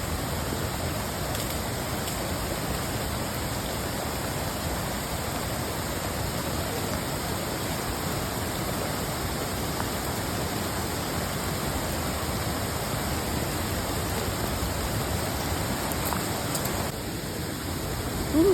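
Flash-flood water rushing steadily, a continuous even wash of noise with no breaks.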